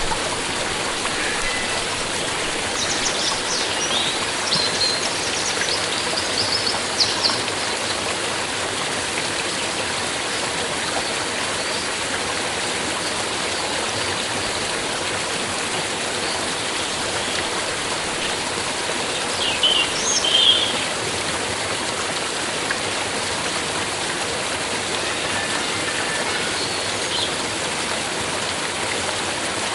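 Stream water flowing and babbling steadily, with a few brief high bird chirps about three to seven seconds in and again around twenty seconds.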